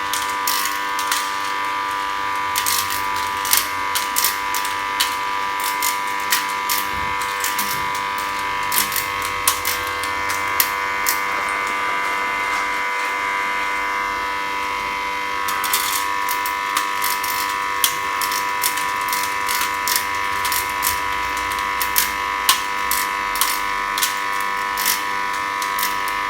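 Electric snail-tail cutting machine running with a steady whine, with frequent sharp clicks of snail shells being clipped. The clicks thin out for a few seconds midway, then come thick again.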